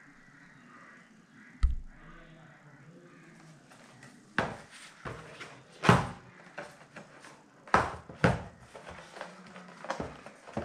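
Packaging being handled against an electronic chess board: a cardboard piece knocking, bumping and rubbing on the board and table. One sharp knock about one and a half seconds in, then from about four seconds an irregular run of knocks and thumps, loudest around six and eight seconds.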